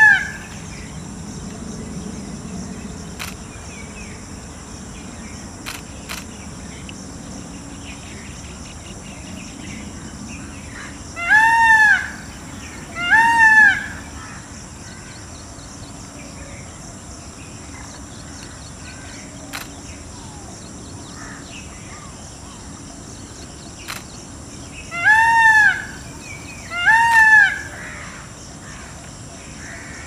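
Indian peafowl calling: a loud call that rises and falls in pitch, given twice about two seconds apart a little over a third of the way in, and another pair near the end, over a steady background hiss.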